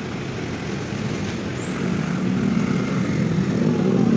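Motorbike and scooter traffic on a city street, engines running, growing louder about halfway through as a group of motorbikes approaches.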